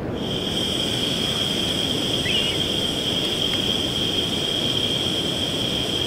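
Gas hissing steadily from a backpacking canister stove's burner, its valve just opened and the gas not yet lit. The hiss starts at the very beginning with a steady high tone in it.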